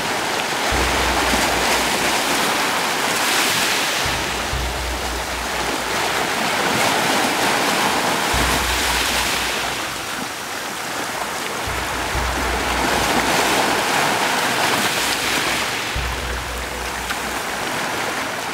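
Ocean surf washing onto the shore, a rushing sound that swells and fades every few seconds, with wind rumbling on the microphone at times.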